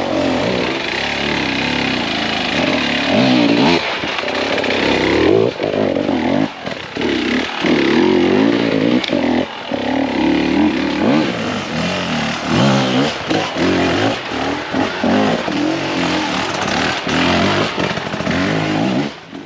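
Off-road dirt bike engines revving in repeated throttle bursts under load on a steep forest climb, the pitch rising and falling with each blip. The sound cuts off suddenly at the very end.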